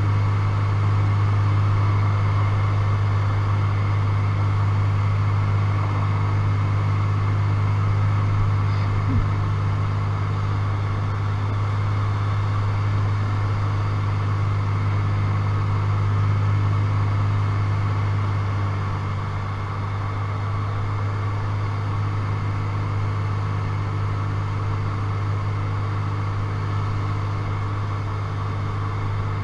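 Single-engine light aircraft's engine and propeller droning steadily, heard from inside the cockpit. The drone eases slightly about two-thirds of the way through.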